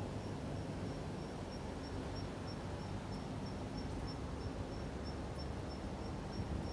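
An insect chirping steadily at a high pitch, short even pulses about three times a second, over a low outdoor rumble.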